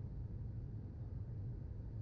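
Airbus A319 cabin noise in flight, heard from inside the cabin: a steady, low rumble of CFM56 engine and airflow noise.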